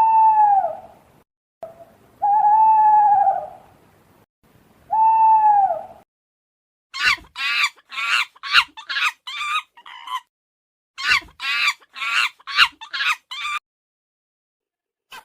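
An animal calling: three long calls, each rising then falling in pitch, followed by two quick runs of short, higher calls.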